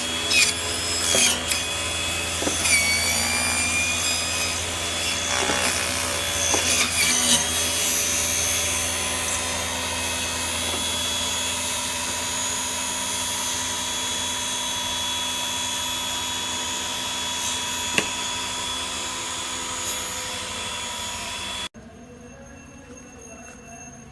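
Electric lemongrass cutting machine running steadily, with rasping, cutting noises and knocks over the first several seconds. The sound cuts off abruptly near the end.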